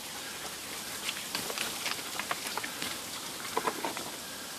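Spring water trickling and splashing down a rock face, a steady wash of water noise with scattered sharp drips.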